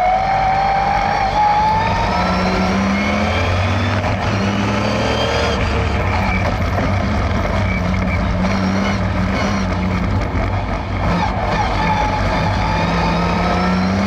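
Race-tuned 3.0-litre straight-six of an Austin Healey 3000 MKII with triple Weber carburettors, heard from inside the cabin while being driven hard on track. The engine note climbs and falls several times as it revs up and eases off, with a brief lift about ten to eleven seconds in.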